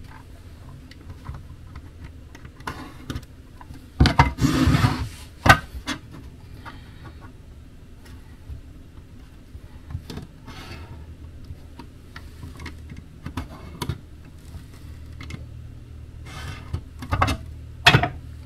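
Pen scratching on a pine board as it traces around a plastic power point box, with the box and board shifted and knocked on a wooden bench: a loud clatter about four seconds in and a few sharp knocks near the end, over a low steady hum.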